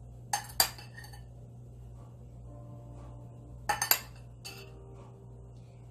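Metal spoon clinking against a glass bowl as blueberries are scooped out and dropped onto pierogi dough. There are two quick clinks about half a second in, a cluster of clinks near four seconds in, and one more just after.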